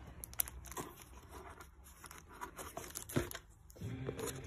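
Cardboard parcel and its packaging being handled and torn open: scattered tearing and crinkling, with a few sharp clicks.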